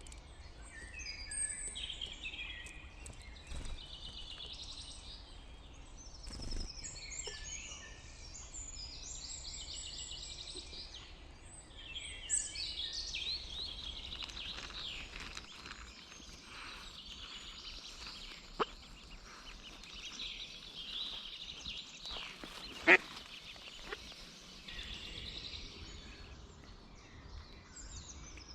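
Several woodland songbirds singing over one another in a steady spring chorus. A few sharp clicks stand out, the loudest about two-thirds of the way through.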